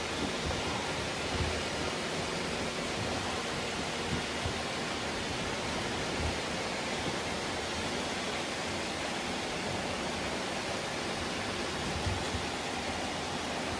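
Many robot vacuums, about two dozen, running at once: a steady whirring hiss of their suction motors and brushes with small knocks now and then.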